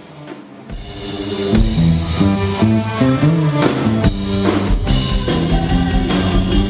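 Band music with a drum kit and guitar. It swells up loudly about a second in, then plays on at full level with a steady beat.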